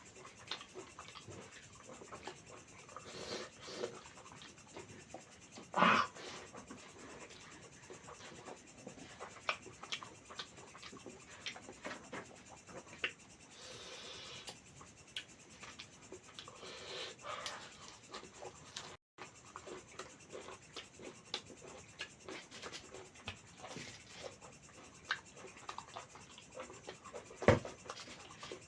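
Close-miked eating sounds of mutton curry and rice being eaten: soft wet chewing and mouth clicks. Two louder knocks stand out, one about six seconds in and one near the end, and there is a brief gap in the sound about two-thirds of the way through.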